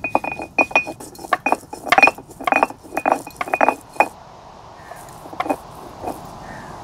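Garlic cloves being crushed with a stone roller on a flat grinding stone: a quick run of sharp knocks with a ringing clink, stopping about four seconds in, then a few scattered lighter taps.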